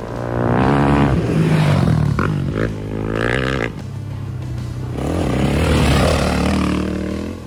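Off-road dirt bike engines revving as the bikes ride past, pitch rising and falling, loudest in two stretches, with background music underneath.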